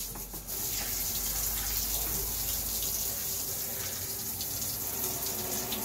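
Water spraying steadily from an old, high-flow handheld RV shower head into the bathtub: a generous stream that burns through a lot of water.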